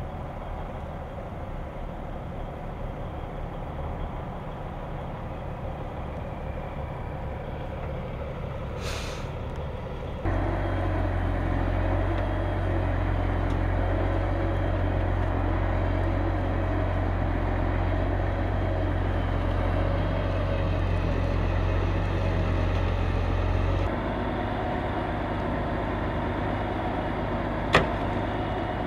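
Heavy diesel truck engines running steadily, getting louder about a third of the way in. A short hiss partway through and a sharp click near the end.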